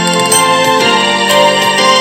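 Background music with a keyboard melody, its notes changing every fraction of a second.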